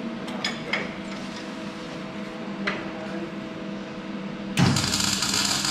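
A steady electrical hum with a few light clicks, then, about four and a half seconds in, a loud burst of noise lasting about a second and a half: a MIG welder putting a tack weld on the Land Rover's engine mounts.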